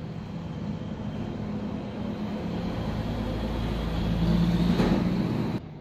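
Engine noise of a passing road vehicle, growing louder and loudest near the end, then cutting off suddenly.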